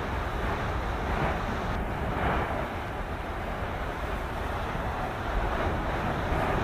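Steady rumbling roar of a phreatic steam-blast eruption, where lava meets ground water and throws out ash and steam. A rushing noise swells and fades now and then, over wind buffeting the microphone.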